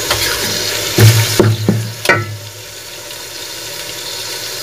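Hot oil and browned onions sizzling in a large aluminium pot as a spoonful of garlic-ginger paste goes in. A few sharp knocks of a spoon against the pot come about a second in, and the sizzling is quieter after about two seconds.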